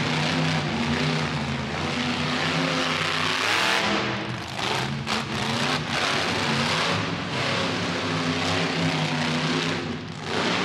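Monster truck engine revving, its pitch rising and falling as the throttle is worked, loudest about three and a half seconds in.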